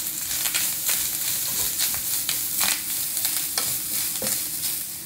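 Grated coconut sizzling as it fries in coconut oil with mustard seeds, dried red chillies and curry leaves in a nonstick pan. A wooden spatula stirs it, scraping the pan now and then. The coconut is being roasted until it turns brown.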